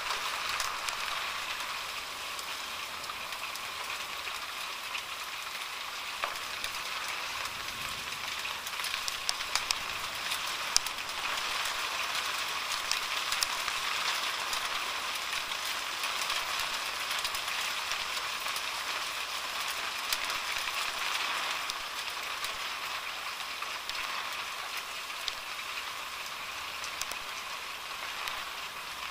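Rain and marble-sized hail coming down hard: a steady hiss with many sharp clicks of stones striking.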